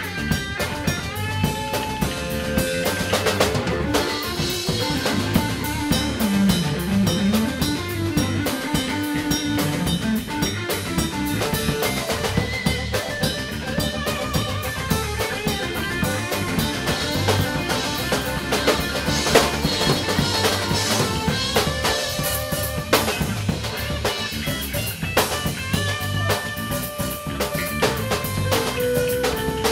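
Live band playing an instrumental passage: drum kit with snare and bass drum keeping a steady beat under electric bass, electric guitar and saxophone.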